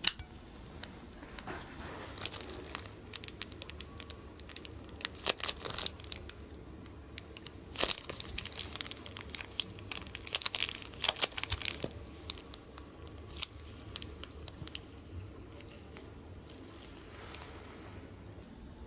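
Slime being worked in plastic piping bags: irregular bursts of crinkling and crackling, several clusters of sharp little crackles with gaps between.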